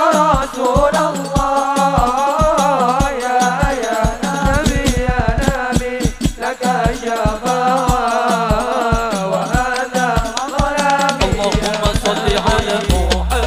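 Sholawat sung by a group of male voices in unison into microphones, over hand-played frame drums keeping a quick, steady beat. The drums break into a fast flurry of strokes a little before the middle.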